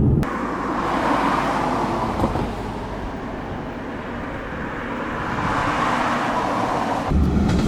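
Road traffic: cars passing, the tyre and road noise swelling about a second in, easing off midway and swelling again.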